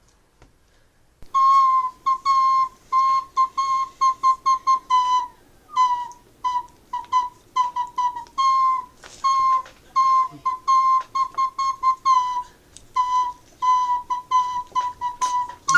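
Cheap plastic slide whistle being tried out, blown in many quick short toots, mostly on one pitch with some notes dipping slightly at their ends. It starts about a second in.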